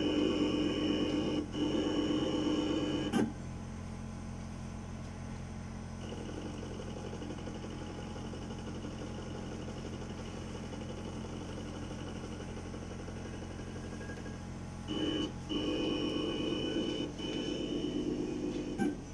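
Sirona inLab MC XL dental milling unit's motors running during its automatic calibration: a whine with a high steady tone for about three seconds, stopping sharply, then a quieter steady hum, and the whine again for the last four seconds.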